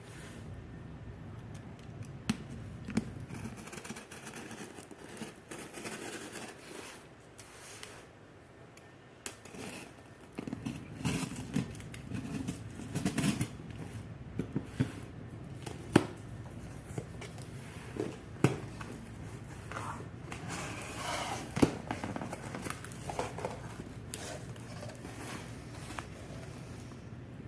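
A shipping box being opened by hand: packing tape cut and torn, with scraping, rustling and scattered sharp clicks.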